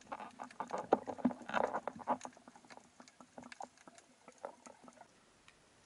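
Irregular underwater clicks and crackles, as of gear being handled close to the camera, thinning out and stopping about five seconds in.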